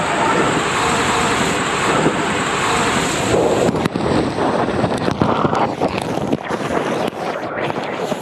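Water rushing through an enclosed twister tube water slide as a rider slides down it at speed, a loud steady rush. From about four seconds in it turns rougher, with quick knocks as the body is thrown from side to side against the tube walls.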